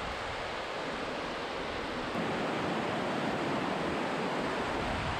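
A steady rushing noise with no distinct events, a little louder from about two seconds in.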